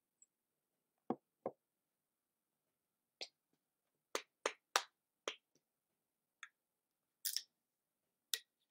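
Handling of a bottle and its wrapping: about ten short, separate knocks and clicks at irregular spacing, with a slightly longer rasp about seven seconds in as the bottle's cap is being gripped.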